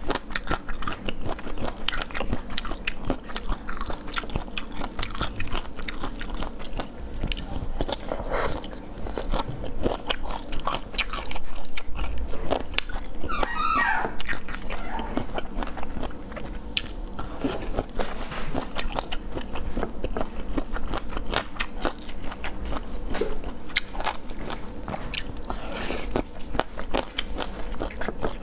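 Close-miked biting and chewing of spicy cold-dressed boneless chicken feet: a steady run of crunches and mouth clicks. A brief wavering squeak about thirteen seconds in.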